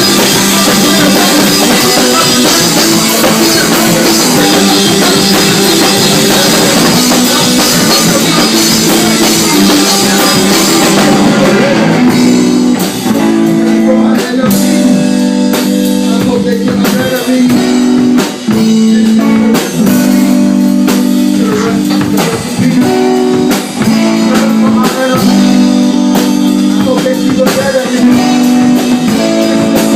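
A live rock band playing an instrumental passage: electric guitar over drum kit and cymbals. About twelve seconds in the cymbals drop away, leaving a run of held guitar notes and chords.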